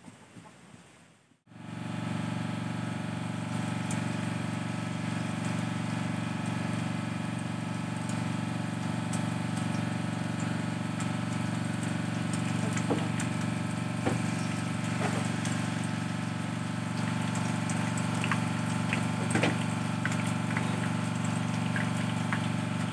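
Small engine running steadily at a constant speed, with a few faint clicks and crackles over it.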